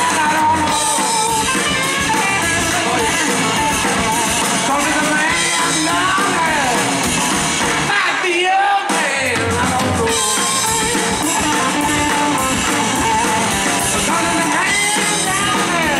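A live rock band playing blues-rock through a festival PA: electric guitars, bass and drums, with a lead line bending up and down over the band.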